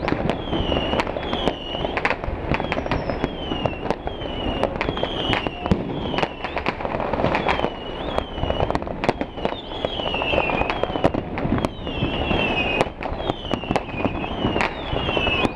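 Fireworks display: a dense, irregular barrage of bangs over continuous crackle and hiss, with short falling whistles repeating about twice a second throughout.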